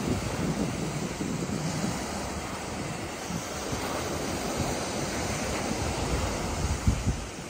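Small sea waves breaking and washing onto a rocky shore, a steady surf hiss, with wind buffeting the microphone in uneven low gusts.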